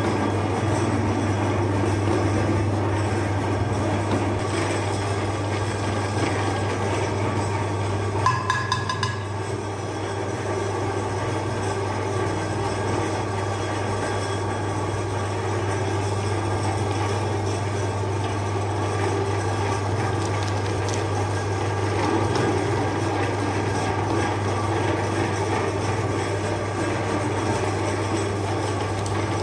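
Electric meat grinder motor running steadily with a low hum, its auger turning and pushing ice cream through the plate. A brief clatter about eight seconds in.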